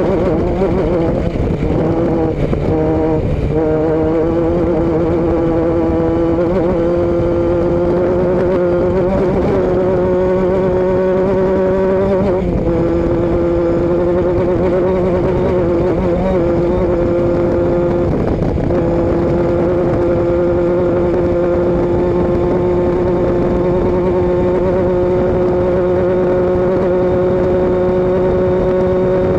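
A vehicle engine running at a nearly steady speed, a continuous drone whose pitch sags briefly a few times and otherwise creeps slowly upward.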